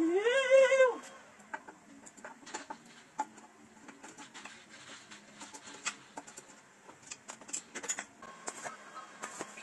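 A rooster crows once near the start, a long rising call that wavers and breaks off about a second in. After it come scattered light metal clicks and clinks from hand tools working on a Honda XRM 125 motorcycle's engine.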